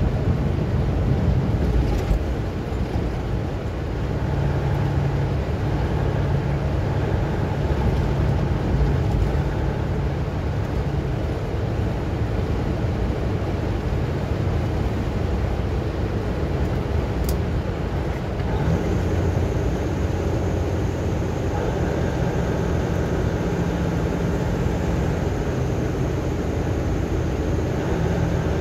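Steady road and engine noise heard inside a vehicle's cabin at highway speed, strongest as a low rumble. A faint high steady tone comes in about two-thirds of the way through.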